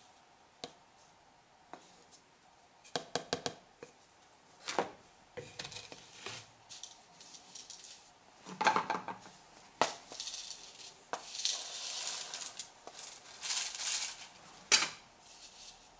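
Small pieces of activated charcoal clinking and rattling in a wire sieve and tin as they are shaken to sift the dust out and tipped together. Scattered sharp clicks at first, then longer bouts of rattling in the second half.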